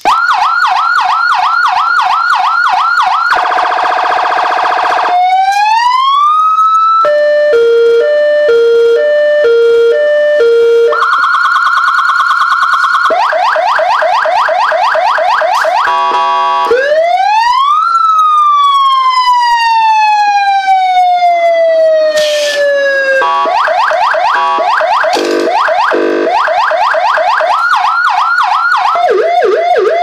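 200-watt AS9000B wireless electronic siren sounding through its speaker, switched by its remote from one tone to the next every few seconds: fast yelping sweeps, a two-note hi-lo, a steady tone, and a wail that rises quickly and then falls slowly. It returns to fast yelps near the end.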